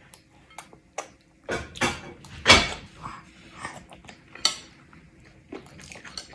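Small metal spoon clinking and scraping against a ceramic bowl as a toddler scoops up food, a string of separate clicks and knocks with the loudest about two and a half seconds in.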